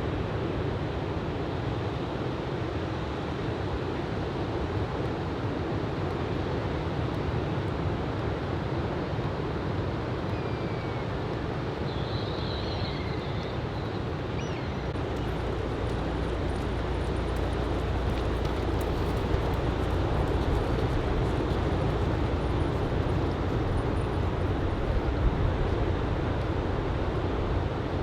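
Ocean surf from typhoon swell washing and breaking steadily on the beach, with a low wind rumble on the microphone that grows from about halfway.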